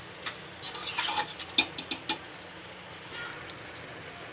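A spoon stirring lotus stem slices in thick masala inside an aluminium pressure cooker, clinking and scraping against the pot several times in the first two seconds. After that, only a faint sizzle of the masala cooking.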